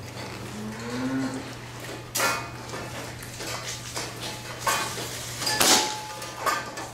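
Metal clanks and rattles, the loudest about two, four and a half and five and a half seconds in, over a steady low machine hum.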